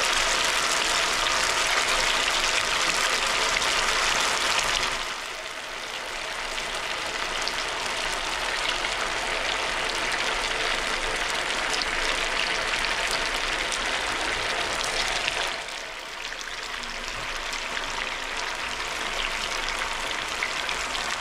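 Batter-coated potato pieces deep-frying in hot oil: a steady, dense sizzle that drops off suddenly about five seconds in and again about sixteen seconds in, then builds back up each time.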